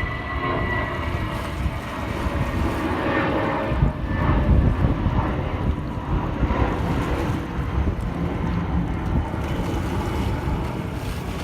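Wind buffeting the microphone over small waves lapping on the shore, with a passing aircraft's engine drone dying away over the first few seconds.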